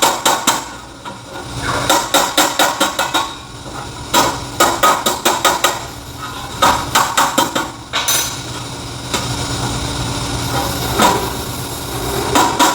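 Hammer blows on a bent sheet-metal box, struck in quick runs of several blows to stamp the open end down tight and flush. About eight seconds in the hammering gives way to a steady hiss for a few seconds.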